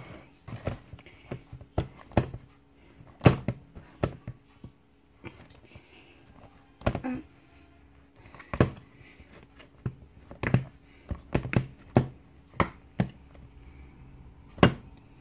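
Metal teaspoon knocking and scraping against a plastic mixing bowl while mashing butter to soften it. The sharp taps come irregularly, about one to three a second, with a few quieter gaps.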